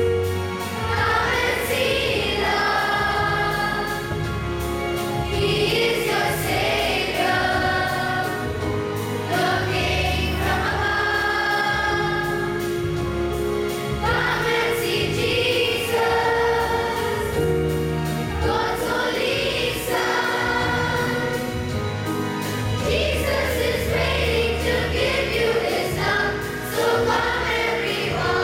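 Children's church choir of boys and girls singing a Christmas carol, phrase after phrase.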